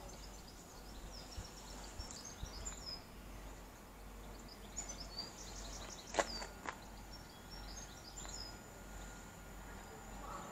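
Small birds chirping in short, high calls over a faint steady low hum. About six seconds in come two sharp clicks half a second apart, the loudest sounds.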